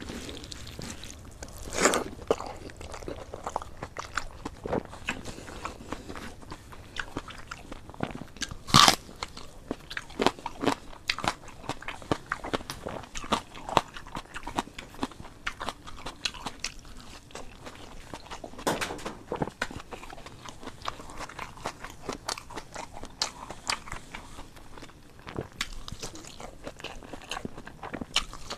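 A person eating by hand, close to a clip-on microphone: steady chewing with many crunchy bites of fried food and rice. The loudest crunches come about two seconds in, near nine seconds and again around nineteen seconds.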